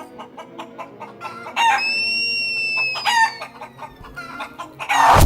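A rooster crowing once, a long held call about a second and a half in, over rapid clucking clicks, with a short noisy burst near the end.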